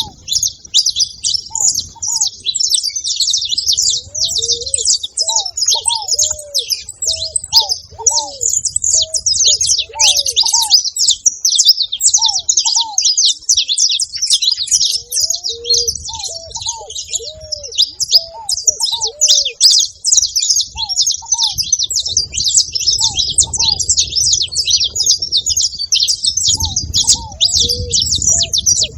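Saffron finch chattering and singing without a break: a dense stream of rapid, high chirps. Short, lower rising-and-falling calls from another bird come in now and then beneath it.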